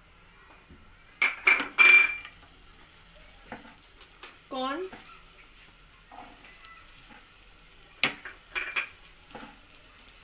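Chopped capsicum and carrot sizzling in hot oil in a nonstick pan, stirred with a wooden spatula that scrapes and knocks against the pan, loudest about a second in. Near the end boiled corn kernels are tipped in with a few clattering strokes.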